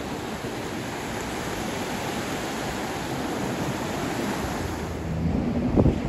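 Ocean surf washing onto the beach in a steady rush, with wind on the microphone. Near the end, a few low thumps from wind buffeting the microphone.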